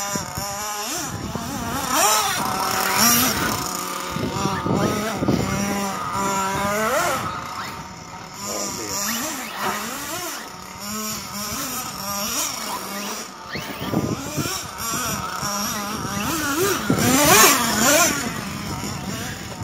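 Radio-controlled model cars' motors revving as they drive over snow, the pitch rising and falling again and again.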